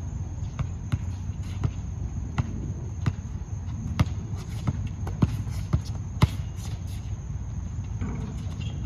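Basketball dribbled on a hard outdoor court: irregular bounces about every half-second to a second, with a sharper bang about six seconds in.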